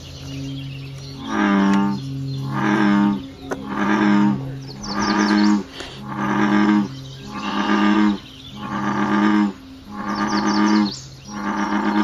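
American bullfrog calling: a low note repeated in a steady rhythm about every 1.2 seconds, nine calls in a row beginning about a second in.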